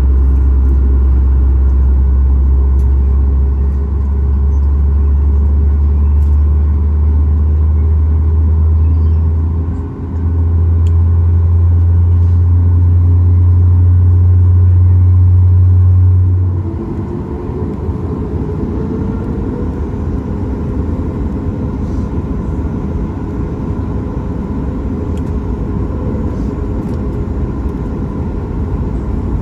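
Cabin noise of a Boeing 737 MAX 8: a loud steady deep hum that about 17 seconds in gives way to a broader rumble, with a tone briefly rising in pitch.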